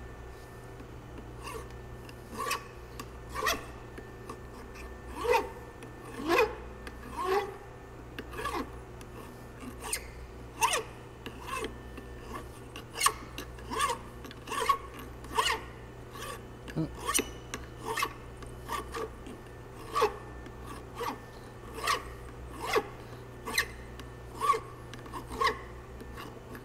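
Hand file scraping across a metal driveshaft yoke held in a vise, in short repeated strokes at an uneven pace of about one to two a second, cleaning up the yoke by hand. A steady low hum runs underneath.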